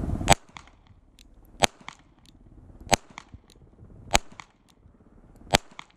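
Five shots from a small Ruger .380 ACP pistol, fired one at a time about a second and a quarter apart.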